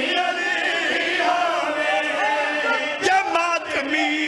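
A crowd of men chanting together, many voices overlapping, with a sharp louder burst about three seconds in.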